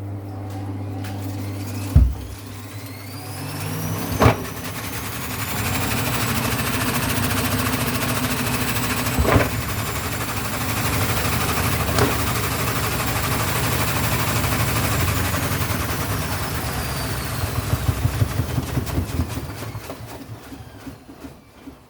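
Vestel washing machine spin cycle: the motor whine climbs over the first few seconds as the drum speeds up, holds steady, then falls away as the drum slows. Several sharp knocks, the loudest about two and four seconds in, and a rhythmic thumping near the end come from the drum with an unbalanced load.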